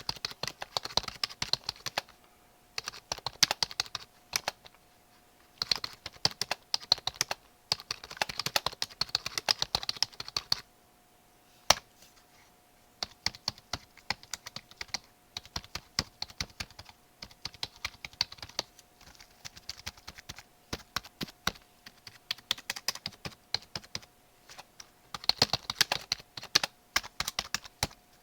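Typing on a computer keyboard: rapid runs of key clicks in bursts of a few seconds, broken by short pauses, with a single sharper keystroke just before the middle. A faint steady hum sits underneath through most of it.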